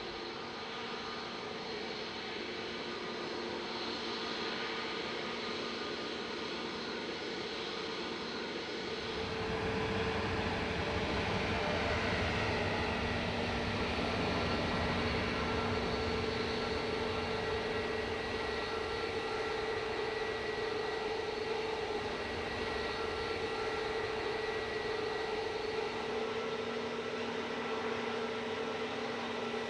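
Airliner engines running with a steady whine over a hum. They grow louder about nine seconds in, as a deeper rumble joins.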